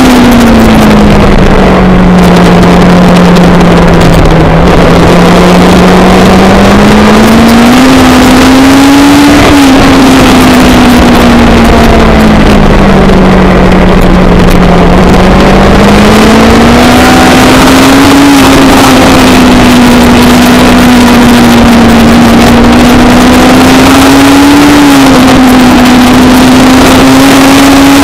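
Race car engine heard at very loud level from on board at speed, over heavy wind and road noise. Its pitch climbs and falls as it accelerates, changes gear and slows for corners, with brief dips from gear changes about a third of the way in, near the middle and near the end.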